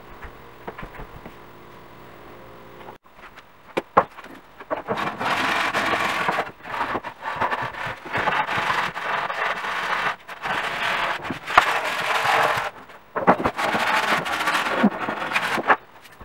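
Hand scraping and rubbing on a stone countertop, in several long stretches broken by short pauses, with a few sharp knocks.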